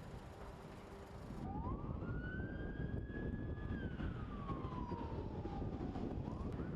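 A siren wailing over a steady low rumble: about a second and a half in, it rises, holds high, then falls slowly over several seconds and starts rising again near the end.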